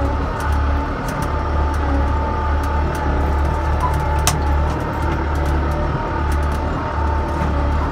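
Farm tractor's diesel engine running steadily under way, heard from inside the cab: a low, even drone with a steady whine over it. A few sharp rattles, the loudest about four seconds in.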